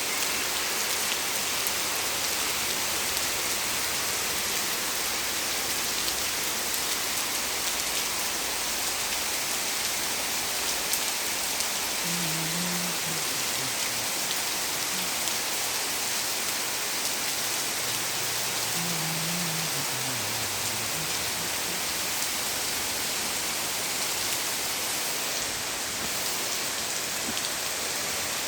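Heavy rain pouring steadily among tall garden trees, an even hiss. A faint low call sounds twice, about twelve and nineteen seconds in, the second one falling.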